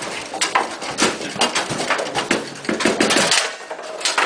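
Clatter of foosball play on Bonzini tables: many sharp clacks and knocks a second as the ball hits the players and walls and the rods knock in their bearings.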